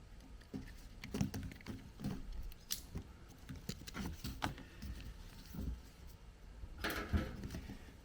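Handling noises of a plastic drain hose being worked onto a washing machine's drain outlet: scattered clicks, taps and rustles, with a louder scraping rustle about seven seconds in.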